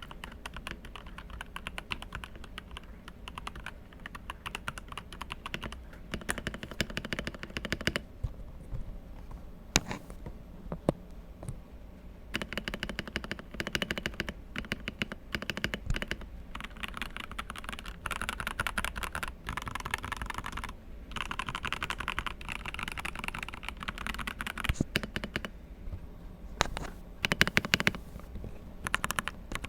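Typing on a Langtu GK65 mechanical keyboard with its stock switches: fast runs of key clacks with short pauses and a few single louder strokes.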